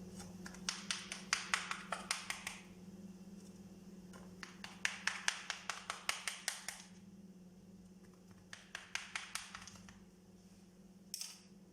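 A knife cutting baked basbousa into pieces in its baking pan: three runs of quick, light taps as the blade strikes the pan, about five or six a second, over a steady low hum.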